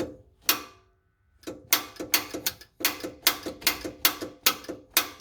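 A rapid series of sharp mechanical clicks, each with a brief ring. Two come about half a second apart, then after a short pause a steady run of about two to three a second.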